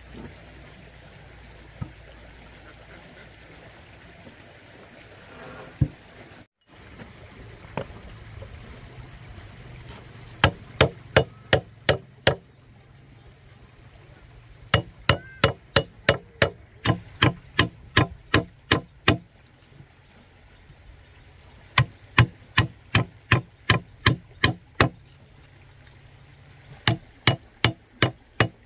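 Hammering: runs of sharp strikes about three a second, starting about ten seconds in and stopping briefly between runs, over a steady sound of running water.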